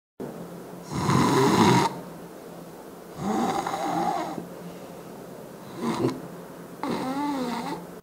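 A person snoring loudly and irregularly: four snores of uneven length at uneven spacing, the last with a wavering pitch. It is obstructed snoring in which the breath clearly does not draw in properly, the kind of snoring that points to a sleep-breathing problem such as sleep apnea.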